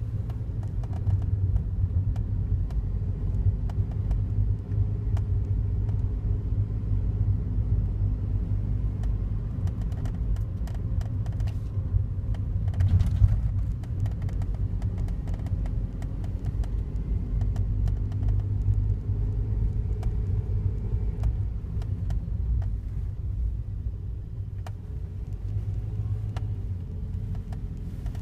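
Daihatsu Wake kei car running: a steady low rumble with scattered faint ticks, and one louder short knock about halfway through.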